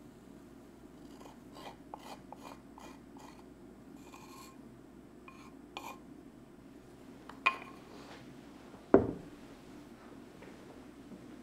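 Matcha poured from a ceramic bowl into a glass of milk: a quick run of soft ticks and drips, then a few scattered clicks. About seven and a half seconds in comes a sharp click, and about nine seconds in the loudest sound, a heavier knock of ceramic on the wooden table as the bowl is put down.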